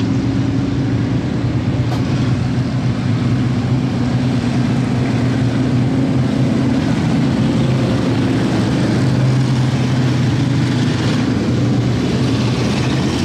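Several stock V8 dirt-track race cars running in a slow line at caution pace, their engines a steady, loud drone that swells slightly as the cars pass close.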